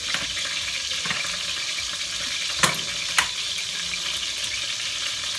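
Veal roast sizzling in oil in a stainless steel pot on a gas burner: a steady frying hiss. Two sharp clicks come about half a second apart near the middle.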